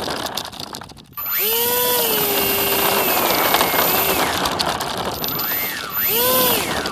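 Loud rumble and rattle of a small vehicle's wheels running over rough, gravelly asphalt. A motor revs up and back down twice, its pitch rising and falling, with a thin, very high steady whine above it.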